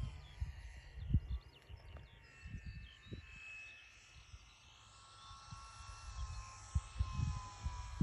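Wind buffeting the microphone in gusts, with the faint whine of a radio-controlled model biplane's motor and propeller that grows louder in the second half as the model comes in on its landing approach.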